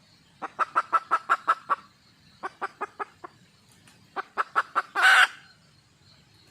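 Wild junglefowl hen clucking in three quick runs of short notes, ending in one louder, longer, harsh call: a hen's call for a mate.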